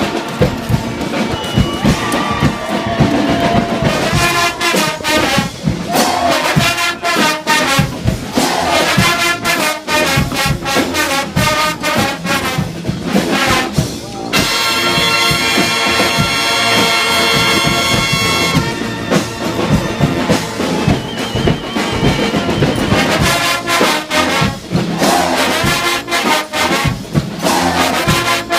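A massed street brass band of over a hundred players, trumpets and trombones over drums, playing an upbeat tune. About halfway through, the band holds one long chord for about four seconds, then the beat comes back.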